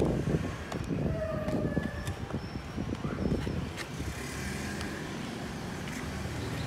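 Rustling and knocking of a cardboard perfume box being opened and handled, with plastic wrapping crinkling. From about four seconds in, the steady hum of a motor vehicle engine, typical of passing street traffic, takes over.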